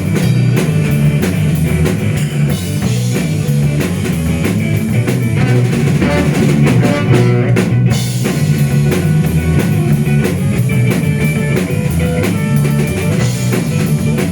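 A live rock band playing an instrumental passage: drum kit, electric guitar and bass, with no vocals.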